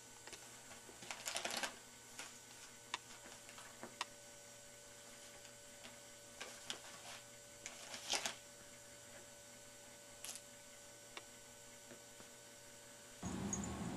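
Faint crinkling of torn Christmas wrapping paper in short scratchy bursts and clicks as a cat noses and paws at it, over a steady low hum. A louder rumbling noise starts suddenly near the end.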